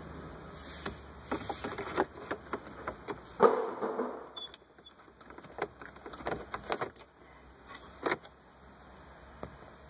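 Hard plastic clicking, knocking and scraping as a replacement blend air door actuator is handled and fed into the opening behind the dashboard. The clicks come irregularly, with the loudest knock about three and a half seconds in, and they grow sparser and fainter in the second half.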